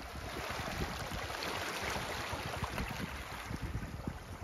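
Wind buffeting the microphone: a steady rush of noise with irregular low rumbles.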